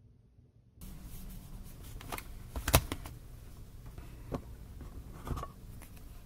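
Handling sounds on a wooden desk as a spiral notebook and an Apple Pencil are moved about: a few soft knocks and taps, the sharpest a little under three seconds in. The first second is nearly silent.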